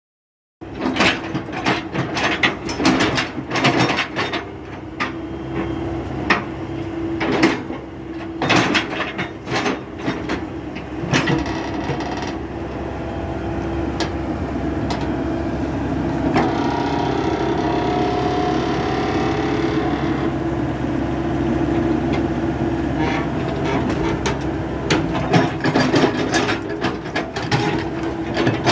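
Diesel engine of a Komatsu PC78US-6 compact excavator running steadily, starting about half a second in. Sharp metallic knocks and clanks break in repeatedly through the first dozen seconds and again near the end.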